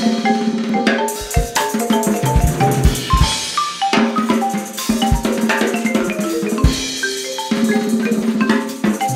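Marimba played with mallets in quick runs of short notes, over a drum kit and other percussion.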